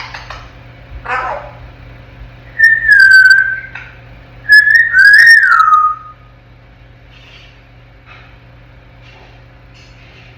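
African grey parrot whistling twice, each whistle about a second long, the second sliding down in pitch at the end. A short scratchy sound comes before them, about a second in.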